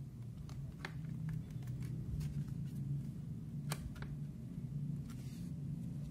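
Scattered light clicks and taps as hands handle the sheet-metal case of a Dahua DVR, the sharpest about a second in and near four seconds in, over a steady low hum.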